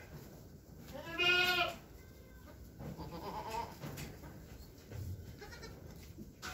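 A goat bleats once, loud, its pitch rising then falling over nearly a second, starting about a second in.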